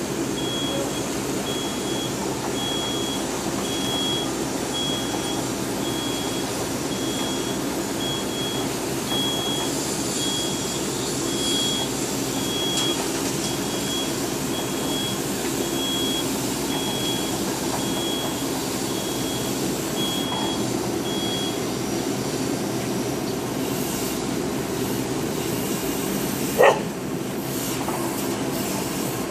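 Sung Han SH-100MD tracked mini drilling rig running steadily, its warning beeper sounding about once a second and stopping some way before the end. One short loud call cuts in near the end.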